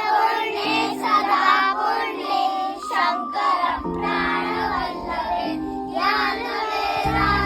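A group of children singing together over sustained accompanying chords that change every second or two.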